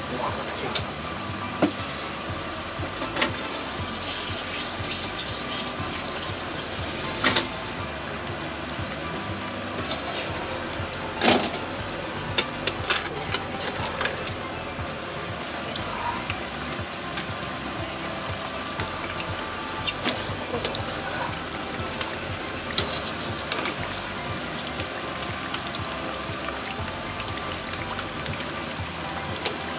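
Flour-coated chicken pieces deep-frying for karaage: a steady sizzle of hot oil, with scattered crackles and pops and a few louder bursts of spattering.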